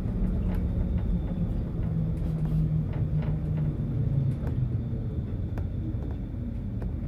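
Tram running with a low rumble, scattered clicks and knocks from the running gear, and a low motor hum that drops in pitch and fades from about four seconds in.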